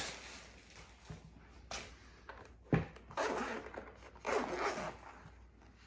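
Zipper of a DJI Osmo Mobile 3 hard-shell carrying case being unzipped in several short pulls, with a sharp click a little before the two longest pulls in the second half.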